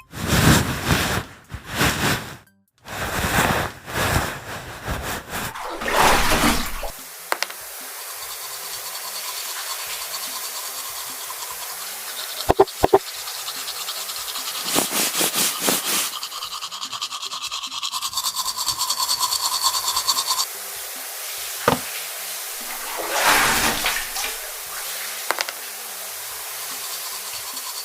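Paper and packaging being handled: bursts of rustling and scraping for the first several seconds, then steadier rubbing and scratching with a few sharp clicks.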